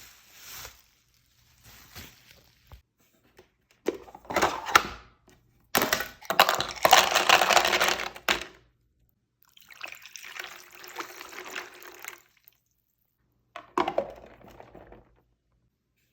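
Water pouring in several separate spells, the longest and loudest about six seconds in, with short knocks between.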